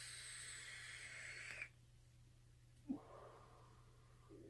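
A long, soft hiss of air drawn through a vape's rebuildable dripping atomizer as a puff is inhaled, stopping sharply after about a second and a half; a small click follows, then the faint breath of the vapour cloud being blown out.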